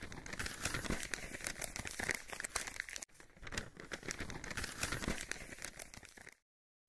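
Crinkling, rustling paper, a sound effect for a parchment scroll unrolling. It comes in two stretches of about three seconds each, with a brief break between them.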